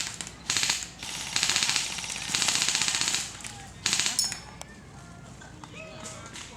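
Airsoft guns firing full-auto bursts: rapid rattling clicks in four or five bursts of up to about a second each. The firing stops about four seconds in.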